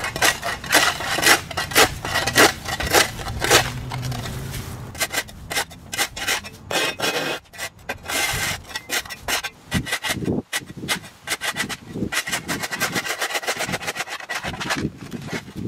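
Flat shovel blade scraping along a concrete sidewalk in repeated strokes, chopping overgrown turf and dirt back from the sidewalk edge. The first few strokes are sharp and loud, then they come quicker and softer.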